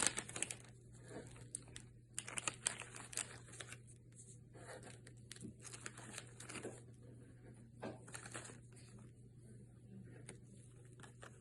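Faint crinkling and rustling of a plastic bag and small tape-covered paper cutouts being handled and dropped into it, in irregular scratchy bursts with a few light clicks.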